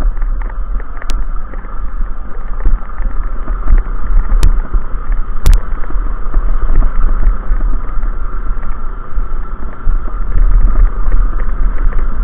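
Suzuki Djebel 200's single-cylinder four-stroke engine running under load, pulling up a loose gravel track at low speed, with a few sharp clicks over the steady engine noise.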